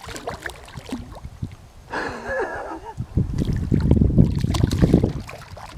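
A hooked fish thrashing and splashing at the water's surface as it is reeled to the boat, loudest and most continuous in the second half.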